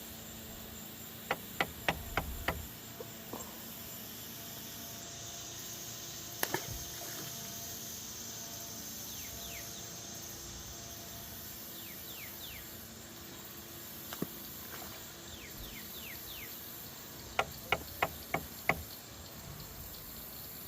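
Two runs of about five quick knocks, one a second or two in and one near the end, with single knocks between: knocking to call alligators. A steady insect chorus, typical of crickets, hums underneath.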